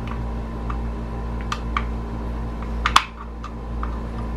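Light metallic clicks and ticks as a small set screw is handled and started into the steel receiver of a Savage 720 shotgun: a handful of separate taps, the sharpest about three seconds in, over a steady low hum.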